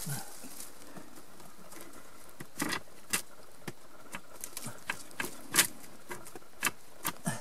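Scattered scrapes and small knocks from a hand groping in a rock crevice, trying to work loose a bone wedged under the stone. The sounds are sparse at first and come more often from about two and a half seconds in, with one sharper knock a little past halfway.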